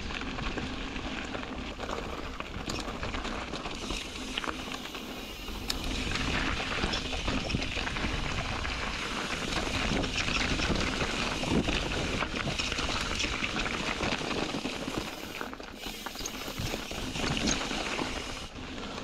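Ibis Ripmo v2 mountain bike descending a dirt and rocky trail: a steady rush of tyre noise with frequent clacks and rattles from rocks and the bike. It gets louder from about six seconds in, as the trail turns rocky.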